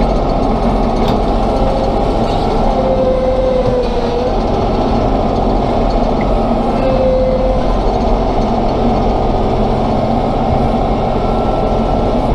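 Tractor engine running steadily under load while a 3-point-hitch bucket is pushed into a dirt pile and lifted. A thin whine comes and goes a few times.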